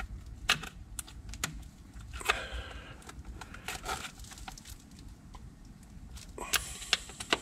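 Plastic wiring-harness retaining clips being pried with a trim clip tool: scattered light clicks and plastic rattles, with a few sharper clicks about half a second in, a little past two seconds and near the end.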